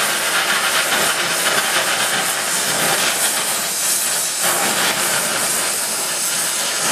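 Gas torch flame hissing steadily as it heats steel bar stock.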